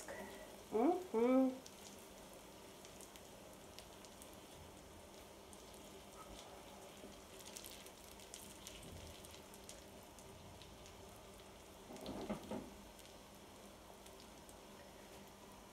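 Spanish potato omelette frying gently in olive oil in a pan, a faint steady sizzle while a silicone spatula shapes its edges. A short, louder scrape comes about twelve seconds in.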